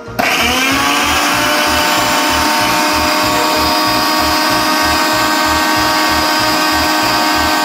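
Electric mixer grinder grinding ginger and garlic into paste: the motor spins up with a short rising whine just after the start, then runs steadily at full speed.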